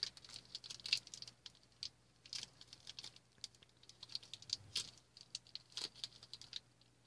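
Small plastic toy baggie crinkling in the hands as it is opened, a run of irregular light crackles.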